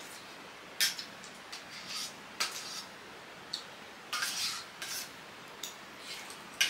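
Metal utensils clinking and scraping against a cooking pot in short, irregular strokes, the loudest about a second in and near the end.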